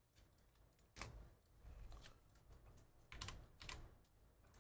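Faint computer keyboard typing and mouse clicks: a few scattered keystrokes about a second in, and a short cluster a little after three seconds.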